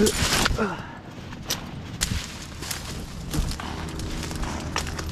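Leafy branches in a brush pile rustling and snapping underfoot, with a loud rustle at the start and a few sharp cracks and clicks later on, over a steady low hum.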